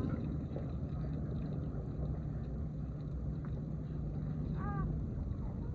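Wind rumbling on the microphone over a steady low hum. A brief high-pitched chirp comes about three-quarters of the way in.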